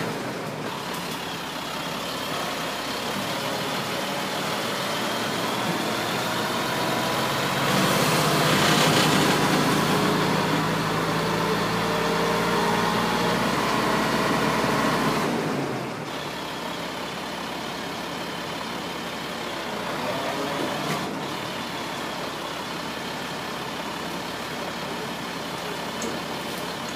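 A large engine running steadily. It grows louder and rougher for several seconds about eight seconds in, then drops back to a steadier, quieter run about fifteen seconds in.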